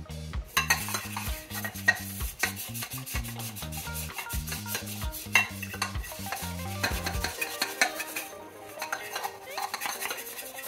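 Dish brush scrubbing the inside of a stainless steel cup: a dense, scratchy rubbing of bristles on metal as tea stains are scrubbed off. Low background music notes stop about seven seconds in.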